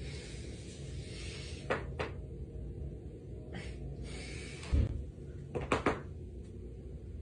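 Back cracking during a chiropractic-style adjustment: two sharp pops about two seconds in, a low thump about halfway, then a quick run of three or four cracks just after it.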